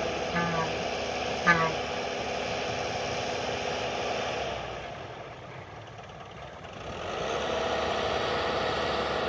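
Kobelco SK120 Mark 3 hydraulic excavator's diesel engine running steadily at work, with two short squeaks about a second apart near the start, the second with a sharp click. The engine sound drops away for a couple of seconds in the middle, then comes back up.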